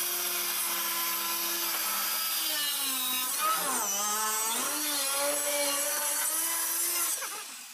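Handheld electric saw cutting into the side of a plastic drum. The motor whines steadily, then drops and wavers in pitch for a second or so about three seconds in as the blade bites into the plastic. It picks back up and winds down near the end.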